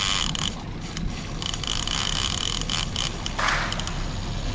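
Line paying out from a conventional line-counter trolling reel in free spool: the spinning spool whines and clicks steadily as the rig is let back out. A short hiss comes about three and a half seconds in.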